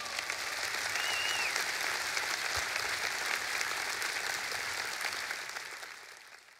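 Audience applauding after a live song, with a short high whistle about a second in; the applause fades away near the end.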